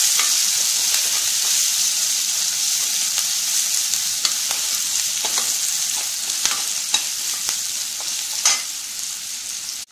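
Sliced onions and curry leaves sizzling in hot oil in a nonstick kadai while a steel slotted spatula stirs them, with a few sharp ticks of spatula and spattering oil. The steady hiss grows gradually quieter.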